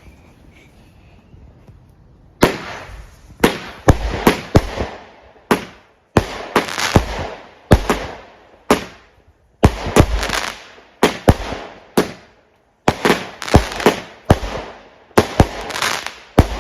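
Fireworks going off: after about two seconds of quiet, a rapid series of loud bangs, several to a second, each trailing off in a crackling hiss.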